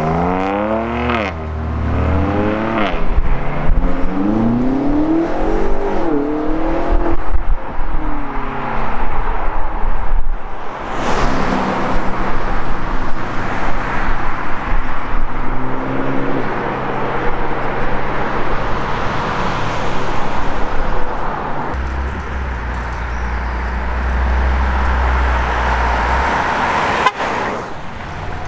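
BMW M2 CS's S55 twin-turbo straight-six accelerating hard away, its pitch climbing and dropping with several quick upshifts over the first seven seconds or so. Later a Mercedes-AMG GT's twin-turbo V8 goes by, holding a steadier engine note for several seconds.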